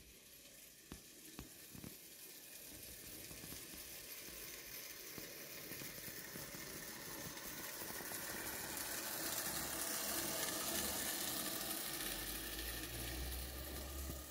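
Battery-powered O gauge model of a GWR 48xx tank locomotive running on garden track, its wheels and motor making a steady hiss that swells as the train passes close and then fades. A low rumble comes in near the end.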